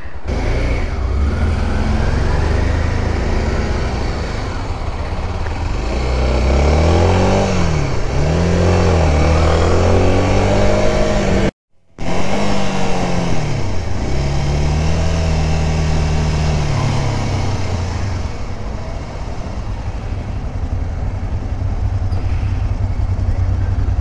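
Honda Dominator 250 motorcycle's single-cylinder engine under way, with steady wind rush over the bike; the engine note rises and falls several times in the middle of the clip as the rider changes speed. The sound cuts out for a moment about halfway through.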